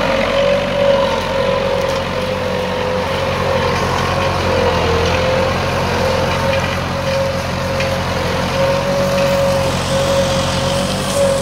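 Massey Ferguson 285 S tractor's four-cylinder diesel engine running steadily under load while pulling a single-shank subsoiler through dry, stony ground. A steady, slightly wavering whine sits above the engine note.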